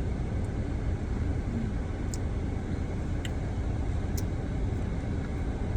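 Steady low rumble of a car idling, heard from inside the cabin, with three faint clicks.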